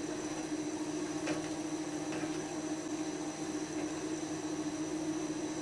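Kitchen cooker-hood extractor fan running with a steady hum, with a few faint clicks of a spoon against the pot as the goulash is stirred.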